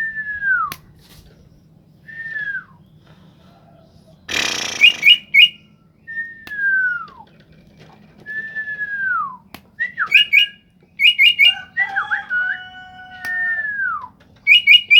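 Leafbird (ijoan) song: clear falling whistles repeated about every two seconds, mixed with quick clusters of sharp high chirps. A brief rustle comes about four seconds in, and a held note follows near the end.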